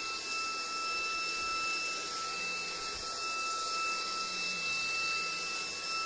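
Maircle cordless stick vacuum running steadily as its brush head is pushed over a low-pile carpet: a steady high whine from the motor over a rush of air.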